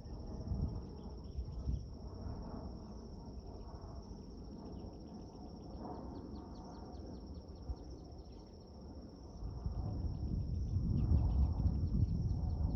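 Crickets or other insects trilling steadily at a high pitch, with runs of rapid chirps, over a low rumble that grows louder in the last few seconds.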